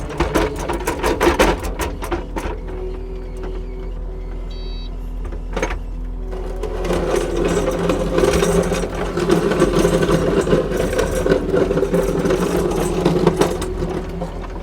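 Kubota SSV65 skid steer's diesel engine running, getting louder from about seven seconds in, with a clatter of clicks and knocks in the first couple of seconds and a single sharp knock around five and a half seconds in.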